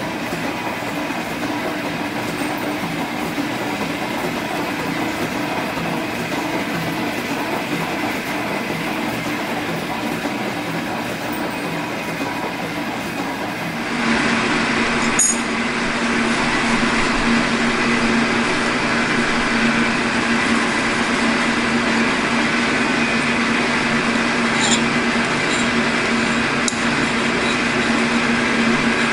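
G&E metal shaper cutting aluminum bar stock, its ram stroking back and forth with a steady mechanical running noise. About halfway, after an edit, a slightly louder steady machine hum with a low tone and a few faint clicks takes over.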